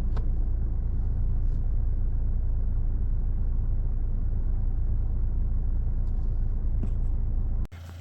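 Steady low rumble that cuts off abruptly near the end.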